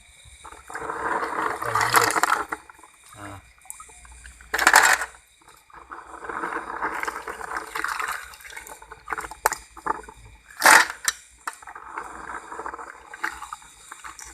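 Snails being washed by hand in a basin of water: water sloshing and splashing in three stretches, with sharp knocks of the shells about 5 and 11 seconds in.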